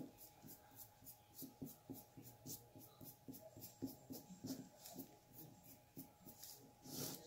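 Small paintbrush brushing black paint onto a rock: a faint, regular run of short scratchy strokes, about three a second. A single sharp click at the very start.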